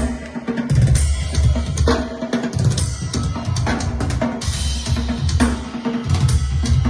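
Music with a prominent drum kit beat: bass drum and snare hits over a steady bass line.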